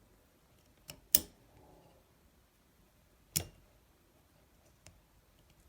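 Sharp metallic clicks from a Heritage Rough Rider single-action .22 revolver's action being worked by hand: two loud clicks about two seconds apart, each with a fainter click near it.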